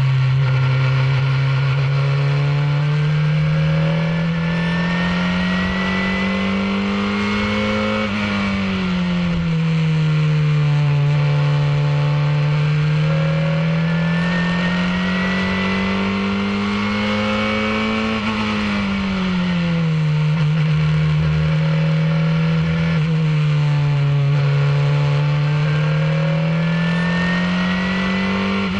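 Onboard sound of a Formula 2000 open-wheel race car's engine at racing speed. The engine note climbs steadily under full throttle, then drops sharply as the driver lifts and brakes for a corner. This happens twice, about a third and two-thirds of the way through, before each pull begins again.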